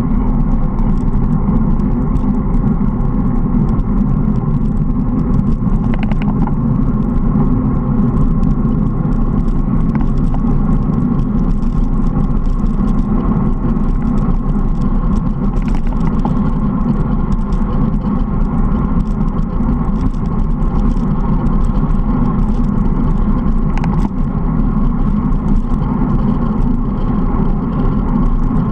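Wind buffeting a handlebar-mounted action camera's microphone on a moving road bike, with road and tyre noise underneath: a loud, steady low rumble. A few faint clicks come through it.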